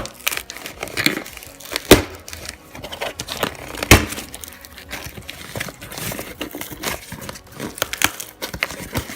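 Hands unwrapping a mailed package: plastic and paper packaging crinkling and rustling, broken by sharp clacks and knocks, the loudest about two and four seconds in.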